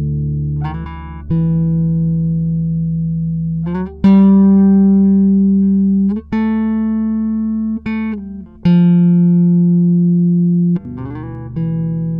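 Background music of long, sustained chords that change every second or two, each change starting with a sharp attack and then slowly fading.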